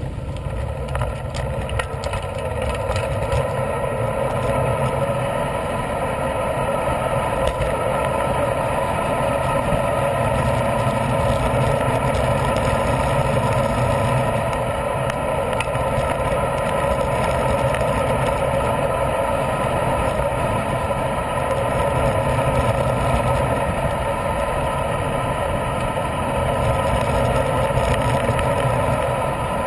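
Steady rush of wind on a bicycle-mounted camera's microphone, with tyre and road noise from the moving bike. It grows louder over the first few seconds, then holds.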